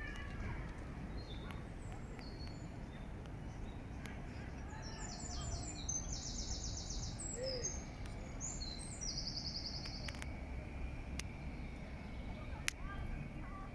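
A songbird sings two high, rapid trilled phrases over a steady low background rumble, with a sharp click near the end.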